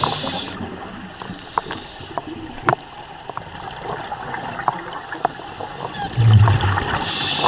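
Underwater sound of a scuba diver: a steady muffled hiss with scattered small clicks. About six seconds in comes a louder rush of exhaled bubbles from the regulator.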